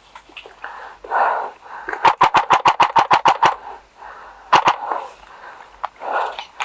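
Airsoft gun firing a rapid burst of about a dozen shots, about eight a second, a couple of seconds in, then two more quick shots a second later.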